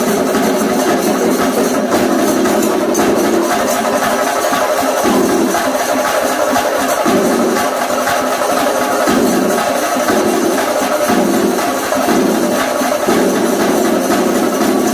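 Chenda drum ensemble played with sticks: a fast, loud, unbroken rhythm of strokes.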